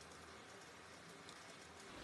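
Faint, soft crackling of slime being handled, a few light ticks over a quiet hiss.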